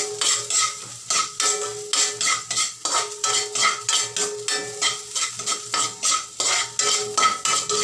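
Metal spatula scraping and clanking against a thin aluminium wok, about three to four strokes a second, while garlic and onion sauté in oil. The pan rings with a steady tone between strokes, over a light sizzle.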